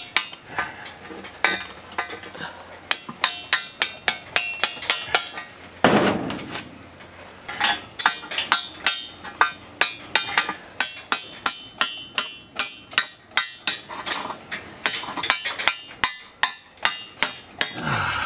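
Hand hammer chipping away at stone masonry just above a steel girder, sharp strikes in irregular quick runs of several a second with short pauses. About six seconds in there is one longer, noisier crunch.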